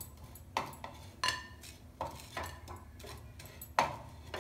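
Wooden spatula scraping and knocking against a nonstick pan as toasted bread slices are lifted out: half a dozen separate knocks and scrapes, one with a short ring after it.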